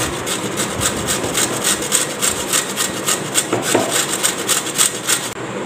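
Carrot being grated on a stainless steel box grater: repeated rasping strokes, about four or five a second, that stop shortly before the end.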